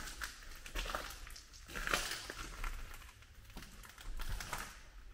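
Footsteps crunching over debris on the floor of a derelict building, an uneven series of crackling crunches underfoot.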